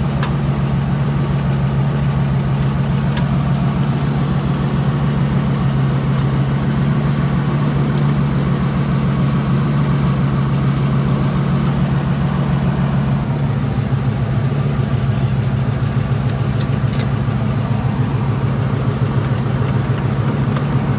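A car's engine running steadily with a strong low hum. About thirteen seconds in, the hum takes on a rapid pulsing.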